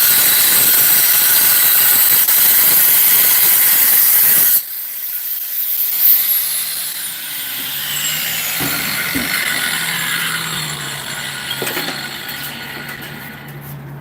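A 7-inch angle grinder cutting sandstone with a loud, steady hiss that cuts off abruptly about four and a half seconds in. The grinder's whine then falls in pitch as it spins down, and a low steady hum comes in.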